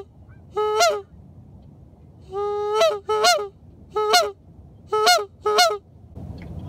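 Goose call blown close by in a run of about six loud honks, each breaking sharply from a low note up to a higher one, the second drawn out longer than the rest; calling to geese flying overhead.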